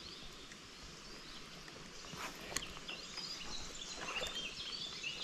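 Small birds chirping in quick, short notes over the steady rush of river water, with a sharp click about two and a half seconds in.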